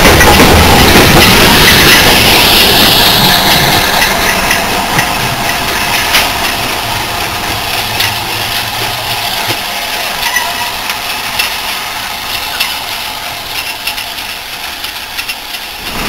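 Steam train on the move: a loud hiss of steam over the first few seconds fades away, leaving rolling rail noise with scattered clicks of wheels over rail joints, which slowly dies down toward the end.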